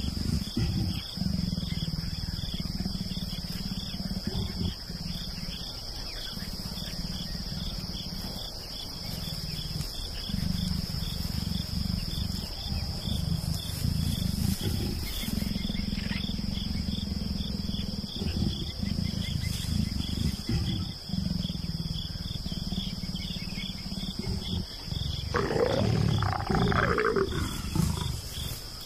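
Leopards growling low in repeated rumbling bouts during mating. Near the end comes a louder, harsher snarl that rises and falls.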